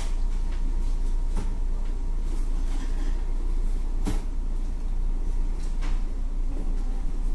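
Steady low rumble of room noise, with a few scattered light knocks and clicks; the sharpest comes about four seconds in.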